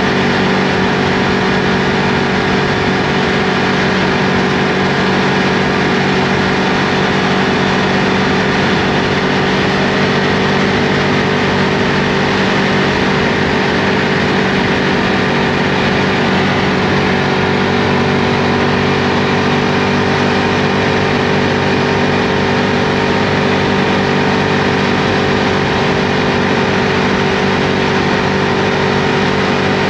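Ducati Multistrada V2S's 937 cc L-twin engine running while the bike is ridden, holding a steady, unchanging pitch throughout, under a constant rushing noise.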